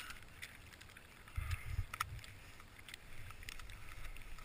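Faint rustling and scuffing of clothing and snow as a hand works at a snowboard boot and binding, with a few sharp clicks and a cluster of low thumps about a second and a half in.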